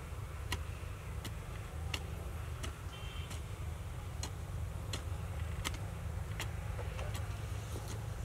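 Regular sharp ticks, about three every two seconds, over a steady low rumble.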